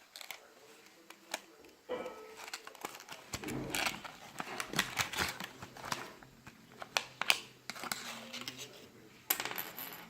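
A small hard plastic object being handled, with irregular clicks, taps and rustles, and a denser burst of rattling clicks near the end.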